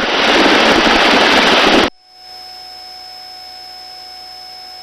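Helicopter noise and wind rushing through an open crew intercom microphone, a steady hiss that cuts off suddenly about two seconds in. What remains is a faint steady electronic hum with a few thin tones.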